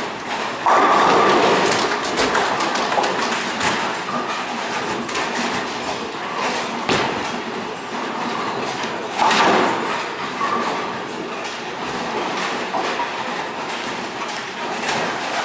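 Bowling alley din: bowling balls rolling on wooden lanes and pins clattering, a steady rumble full of small knocks. There is a louder crash just under a second in and another about nine seconds in, the second as a rolled ball reaches the pins.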